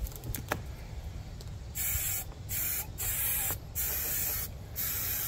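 3M Super 77 aerosol spray adhesive hissing out of the can in five short bursts, the first about two seconds in, after a few light clicks.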